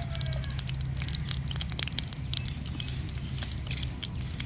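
Mustard seeds crackling in hot groundnut oil in a steel kadai: many sharp, irregular pops, several a second, over a steady low hum.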